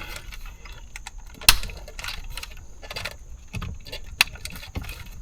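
Small plastic clicks and light rattles of an electrical wiring connector being handled and pushed into place, with one sharper click about a second and a half in.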